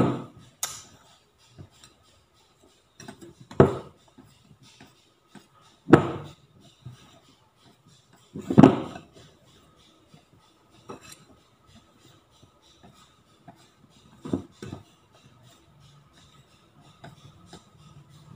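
Small wire whisk stirring and folding egg white into soufflé pancake batter in a ceramic bowl, with soft scraping and the wires knocking against the bowl's rim now and then, about seven sharp clinks at uneven intervals.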